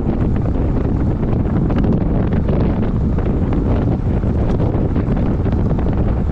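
Heavy wind buffeting on the microphone from riding a road bike at about 40 km/h, a loud, steady low rush.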